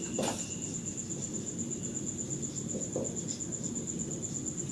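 A cricket trilling steadily in the background: a high, even pulsing note, with faint room noise and a couple of brief soft sounds, one shortly after the start and one about three seconds in.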